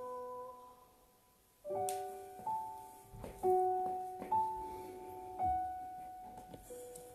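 Piano passage of a sung Italian pop ballad. After a short lull about a second in, notes and chords are struck about once a second and each is left to ring.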